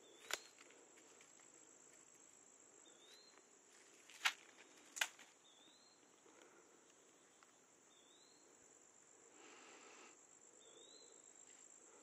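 Faint woodland ambience: a steady high insect drone, with a short rising chirp repeating every couple of seconds. Three sharp clicks stand out, one just after the start and two about four and five seconds in.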